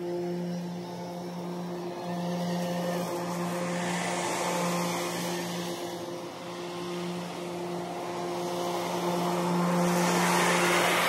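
Battery-powered Ego zero-turn mower cutting grass: its electric blade motors whir with a steady hum and a rushing swish of grass, getting louder near the end as the mower comes closer.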